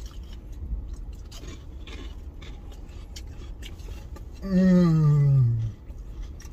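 A person eating, with faint chewing and scattered soft clicks, then about four and a half seconds in a loud, long hum of enjoyment through a full mouth that falls steadily in pitch.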